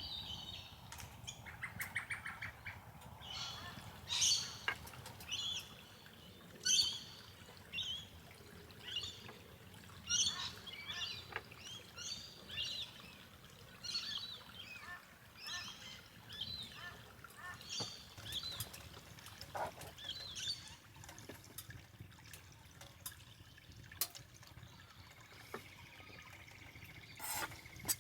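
A bird calling repeatedly with short high chirps, about one or two a second, which stop about two-thirds of the way in. A few sharp clicks follow near the end.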